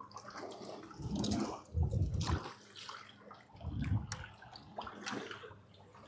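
Sea water sloshing and splashing against a small boat's hull in irregular bursts, with strong wind gusting on the microphone.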